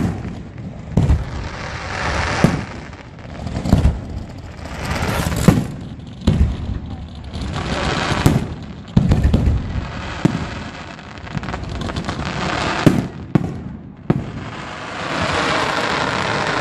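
Fireworks display: aerial shells bursting in repeated deep booms, about a dozen spread unevenly, with dense crackling between the bursts that swells near the end.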